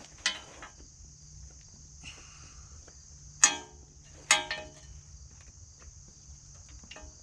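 Hand tools knocking against the metal of a small engine during a tear-down: a light click near the start, then about three and a half seconds in two sharp, ringing metal clanks less than a second apart, with smaller taps after. A faint steady high hiss runs underneath.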